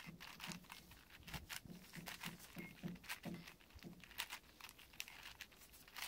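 Plastic 6x6x6 Rubik's cube being turned layer after layer, an irregular run of light clicks and clacks, several a second, as a move sequence is worked through.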